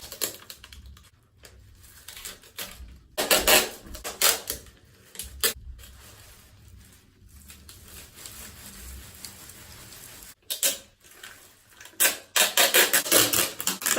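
Packing tape being pulled off the roll and wrapped around a hand and arm, in short, loud, crackling rips: one a few seconds in, another after about ten seconds and a quick run of them near the end, with rustling handling between.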